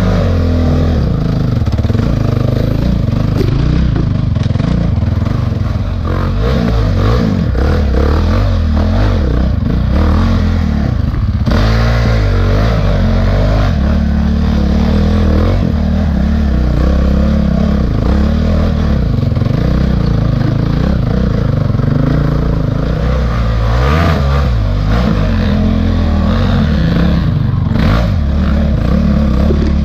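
Honda CRF450X's single-cylinder four-stroke engine running close up under the rider, the revs rising and falling as it works up a steep, rocky trail at low speed. A few sharp knocks stand out over the engine.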